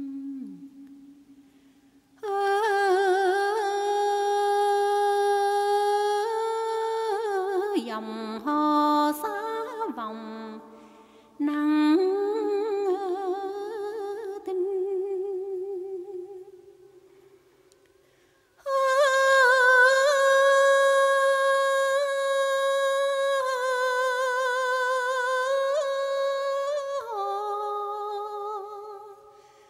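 A solo voice humming long, wordless held notes with a wide vibrato and sliding pitch, in Vietnamese folk-song style, in three long phrases separated by fades.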